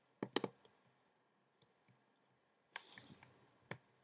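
MacBook trackpad being clicked: two quick clicks just after the start, then a click about three seconds in followed by a brief brushing of fingers across the pad, and one more click shortly after.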